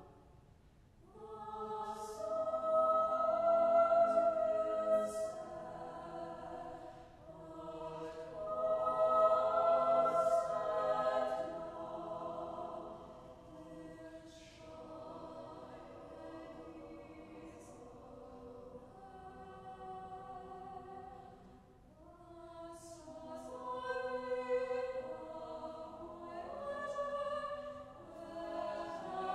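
Small mixed chamber choir singing in chapel acoustics. The sung phrases swell loud twice in the first half, sit quieter through the middle and build again near the end, with crisp 's' consonants cutting through.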